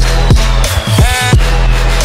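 Electronic outro music with heavy, deep bass-drum hits and a slow falling synth sweep. About a second in the bass briefly drops out under a short, bright synth stab.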